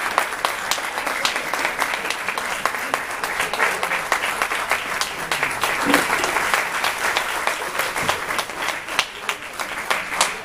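A crowd applauding: many hands clapping in a steady, dense patter.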